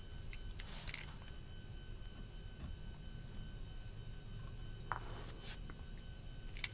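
Faint, scattered small clicks and taps of a precision screwdriver and a Benchmade Bugout pocketknife being handled while its screws are turned, over a faint steady high whine.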